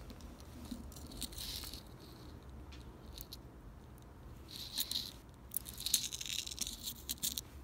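Metal necklace chain and angel wing pendant jingling and clinking as they are handled, in three short bouts, the longest near the end.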